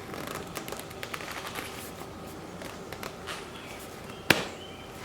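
Rubber bicycle tire being worked by hand onto the rim, its bead rubbing and squeaking against the rim with scattered small clicks, and one sharp snap about four seconds in as the last of the bead goes on.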